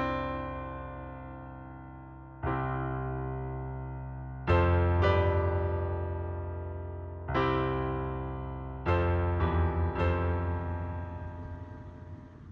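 Background music: slow electric piano chords, each struck and left to ring out, with the music fading away near the end.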